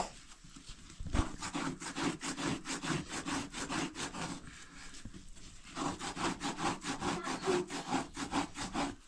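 Rapid rhythmic rasping strokes, about four a second, from a large cloth being worked by hand. They come in two runs with a short pause in the middle.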